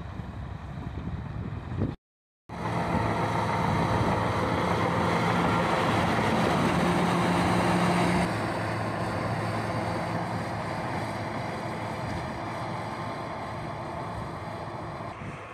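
Rotary snow blower's engine running steadily with the rush of snow being thrown, loud at first and quieter from about eight seconds in. Before it, two seconds of wind-like rushing break off in a short silent gap.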